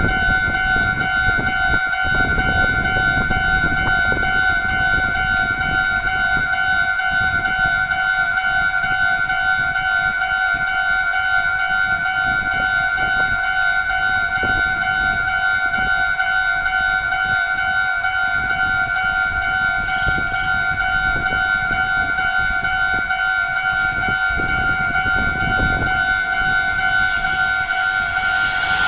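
Japanese railway level-crossing warning bell ringing steadily, a fast repeating clang on two pitches an octave apart, over a low rumble.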